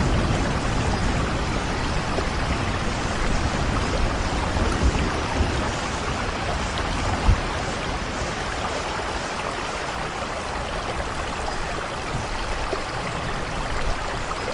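Steady rain falling, an even hiss with scattered drop ticks. A low rumble of thunder dies away over the first half.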